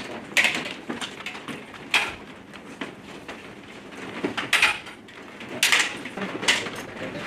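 Practice straight swords, steel blades and wooden wasters, clacking against each other as partners trade strikes in a sword drill: a run of sharp, irregular knocks and clinks, each with a short ring.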